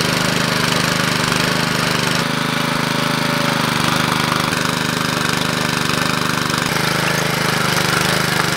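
Walk-behind trencher's small petrol engine running steadily under load while its digging chain cuts a trench through dry, sandy soil.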